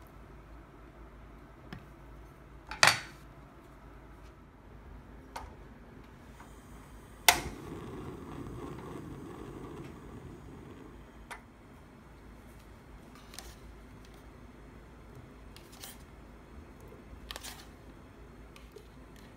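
Sharp clicks and knocks of kitchen handling, the loudest about three seconds in. About seven seconds in, a loud click from a portable butane stove's igniter is followed by a few seconds of hissing rush as the burner lights, and fainter clicks come later.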